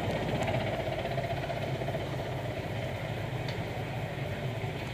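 Mi-8 twin-turbine helicopter running as it departs: a steady turbine and rotor sound with a fine rhythmic beat, slowly fading.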